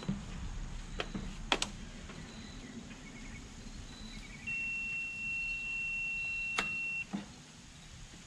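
A battery jump pack being clipped onto a lawn tractor: a few sharp clicks from the clamps, then a steady high electronic beep from the pack that lasts about two and a half seconds.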